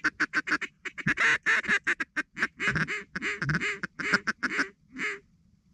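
Hand-blown mallard duck call: a fast chatter of short notes, then a quick string of quacks, stopping near the end.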